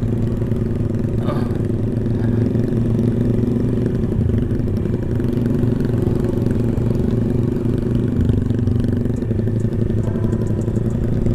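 Motorcycle engine running steadily at a constant cruising speed, heard while riding.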